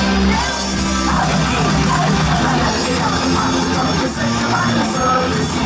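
Live folk-punk band playing loudly, with sustained bass notes and voices singing over the amplified music.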